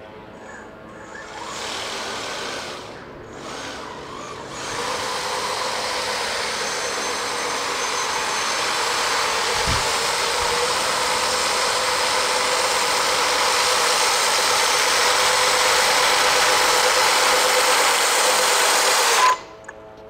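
Remote-control tracked aircraft tug driving on concrete, its motors whining steadily. The sound comes in a few seconds in, grows louder as the tug closes in, then cuts off suddenly near the end.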